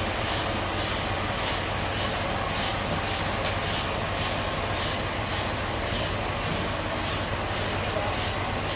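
Bandsaw sawmill running and cutting wood: a steady low machine hum with an even hissing pulse about twice a second.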